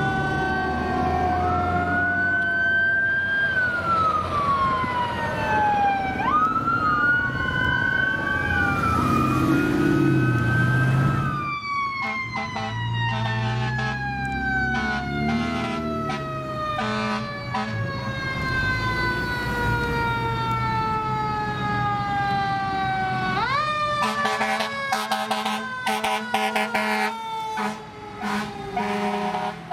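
Fire truck sirens on a code 3 response: at first several sirens wailing and yelping over each other, then one siren winding down in a long slow fall, revved up quickly again near the end and falling once more, broken by short repeated blasts.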